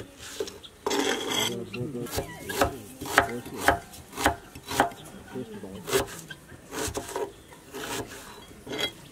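Knife chopping red onion on a wooden cutting board: a scraping slice, then sharp, even chops about two a second.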